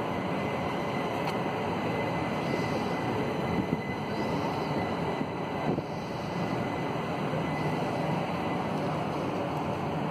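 Southeastern Class 375 electric multiple unit passing close by at low speed, a steady noise of its wheels running on the rails.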